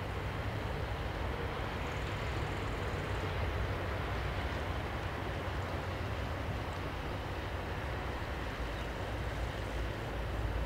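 Motor cargo barge passing, its diesel engine a steady low drone under an even wash of outdoor noise.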